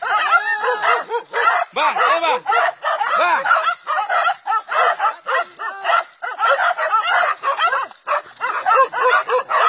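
A pack of hunting dogs barking and yelping rapidly and without pause, several dogs overlapping, as they hold a cornered wild boar at bay.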